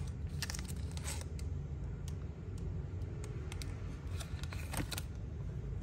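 Scattered light clicks and scrapes of a Zippo lighter and its insert being handled, over a steady low hum.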